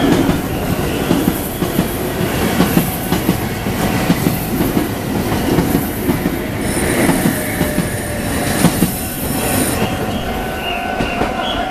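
Meitetsu train running past at close range, wheels clattering on the rails, with a high hiss joining in for a few seconds past the middle.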